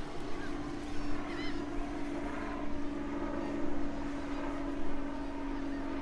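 Helicopter droning steadily as it approaches.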